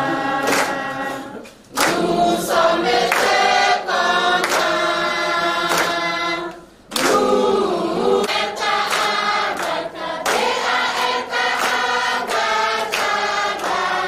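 A group of young people singing together, with hand claps keeping a steady beat. The singing breaks off briefly twice, about two seconds in and again near seven seconds.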